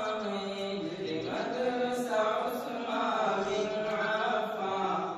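Chanted vocal melody: a voice holding long, slowly wavering notes in phrases, with breaks between phrases about a second in and at the very end.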